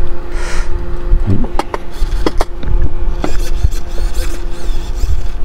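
Hobby servos on a radio-controlled helicopter being worked by hand and radio, with short whirs, scattered clicks and knocks of handling, and a steady hum underneath. The servos are being checked for stripped gears, and they are running without fault.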